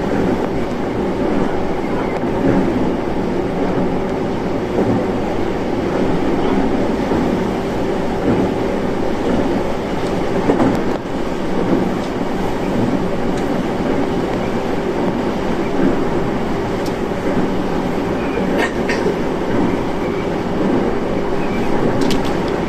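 Steady running noise of a Shinano Railway electric train, heard from inside the carriage as it travels at speed: wheels rumbling on the rails under a steady hum, with a few light clicks about halfway and near the end.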